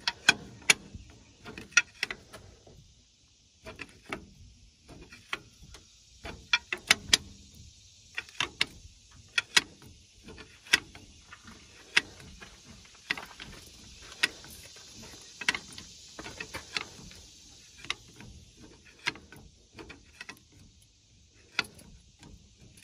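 Irregular sharp metal clicks and clacks from a long screwdriver prying on the flywheel ring gear of a Detroit Diesel 6-71, turning the engine over by hand.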